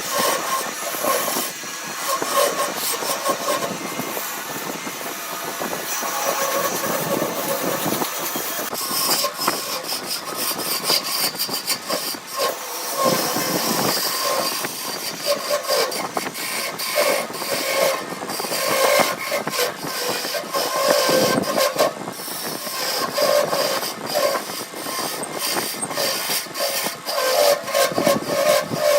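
Wood lathe running with a turning tool cutting into the spinning wood: a steady hiss of cutting with a running tone and frequent short clicks and chatter throughout.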